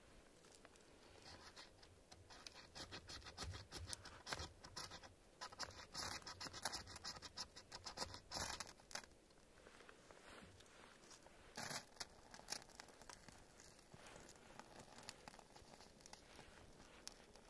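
Knife blade scraped along a ferrocerium rod over birch-bark tinder to throw sparks for lighting a fire: a run of quick scratching strokes from about a second and a half in to about nine seconds, then a couple more near twelve seconds.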